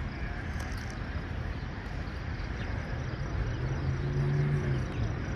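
A car engine running, its pitch rising a little past halfway and then falling back near the end.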